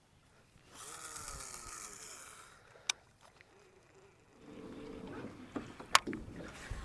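A cast with a fishing rod: line whizzing off the reel for about two seconds, its pitch falling as it goes, then a sharp click. From about halfway through come rustling and several sharp clicks and knocks.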